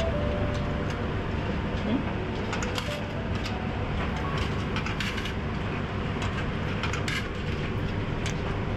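100-yen coins dropped one at a time into the coin slot of an AQUA coin-operated washing machine, each landing with a short click, over a steady low machine hum.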